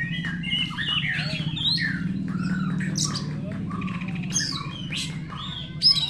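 Several caged Oriental magpie-robins singing at once in a dense, overlapping chorus of quick varied whistles, chirps and harsh notes, over a steady low hum.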